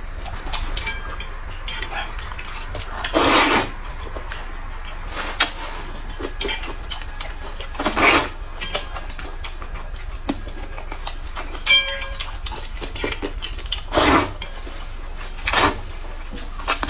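Close-up eating sounds: noodles slurped from a metal bowl in four loud slurps, over small clicks of chopsticks and spoon against the bowl. There is one ringing clink of metal on metal about two-thirds of the way through.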